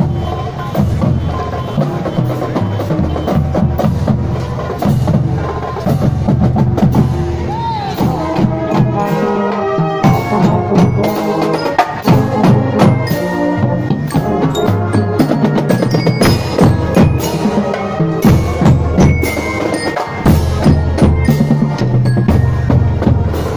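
Marching band playing: marching snare and tenor drums beating a dense rhythm under brass horns.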